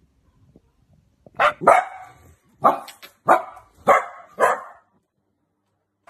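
Dachshund puppy barking: a string of about six short barks, starting about a second in and coming at an even pace of roughly one every half second or so.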